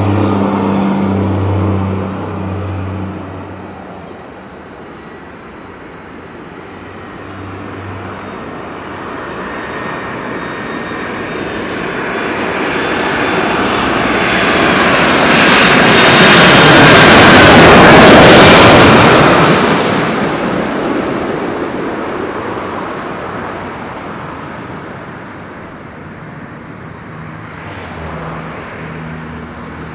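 Boeing 767-300ER jet engines on landing approach, passing low overhead: a whine and roar build steadily to a peak about 18 seconds in, with a high fan whistle as it nears, then fade as the airliner moves away toward touchdown.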